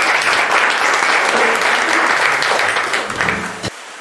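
An audience applauding, a dense run of clapping that cuts off suddenly near the end, leaving a faint, steady wash like surf.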